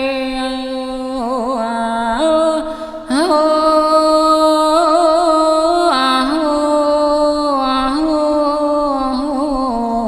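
Khmer smot: a single voice chanting Buddhist verse unaccompanied, holding long notes that step between pitches with wavering ornaments. There is a brief break for breath about three seconds in.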